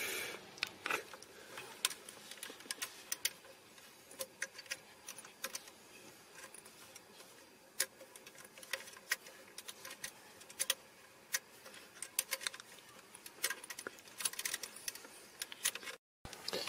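Faint, irregular small metallic clicks and ticks from a 2.5 mm hex key turning the screws of a car radio's side retaining catches to wind them back.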